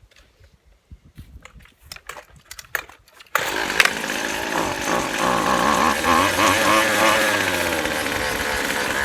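Small two-stroke engine of a gas string trimmer, which comes on suddenly a little over three seconds in and then runs steadily, its pitch wavering slightly. Faint clicks and handling noises come before it.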